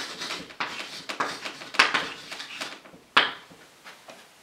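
Chalk writing on a blackboard: a run of short scratching strokes, then a sharp tap about three seconds in.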